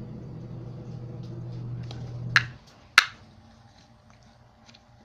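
A steady low hum that stops about two and a half seconds in, then two sharp clicks about half a second apart, followed by a few faint light ticks.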